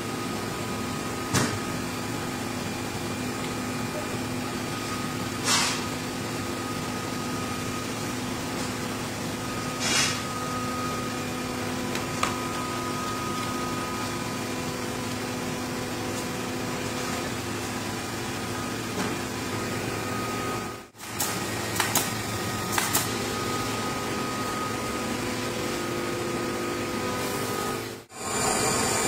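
Steady hum of tyre-retreading workshop machinery, with a few short sharp noises over it and two brief dropouts in the second half.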